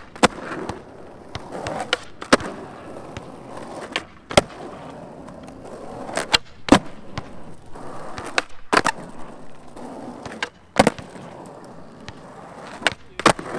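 Skateboard with titanium trucks rolling on asphalt, with the steady rumble of the wheels broken by sharp cracks of the tail popping and the board landing during flip tricks. The cracks come every two seconds or so, often in close pairs.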